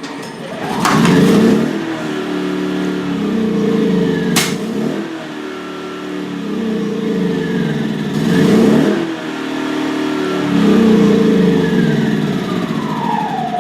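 Yamaha EF2000iS inverter generator's small single-cylinder engine running and surging: it sags and revs back up about four times as the remote shutoff button is held and let go before the engine stops. There is a sharp click about four seconds in, and the engine is winding down near the end.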